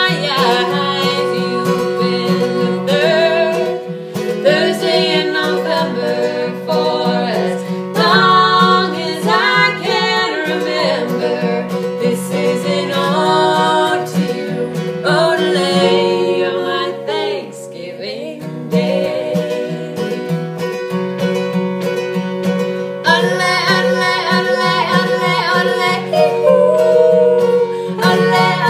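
Two women singing together to an acoustic guitar accompaniment.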